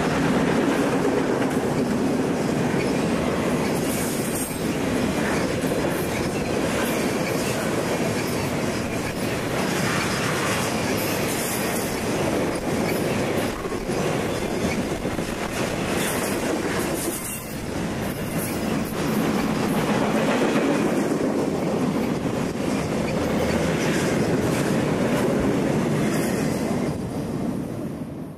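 Flatcars of a Conrail intermodal freight train, loaded with highway trailers, rolling past: a steady rumble of steel wheels on rail with irregular sharp clicks, fading out at the very end.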